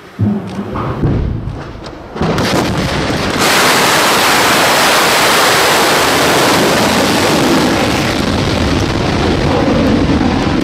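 Topol-M intercontinental ballistic missile launching: a sudden blast just after the start, then from about two seconds in the solid-fuel rocket motor's exhaust noise builds. From about three and a half seconds it runs as a loud, steady rushing roar.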